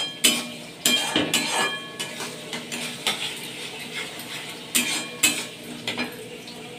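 Metal spatula scraping and knocking against a steel kadhai while stirring thick masala paste, in irregular strokes, some with a brief metallic ring, over a low sizzle of the frying masala.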